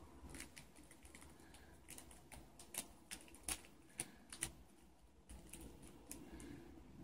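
Faint, irregular crinkling clicks of a clear plastic bag as a cat's head works inside it to eat the food it holds, a cluster of sharper clicks a few seconds in.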